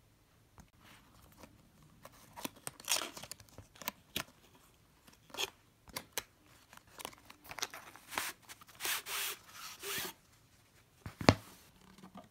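Cardboard mouse-pad box being handled and opened: flaps bending, card scraping and rustling in irregular bursts as the rolled cloth pad is slid out. A single sharp knock about eleven seconds in is the loudest sound.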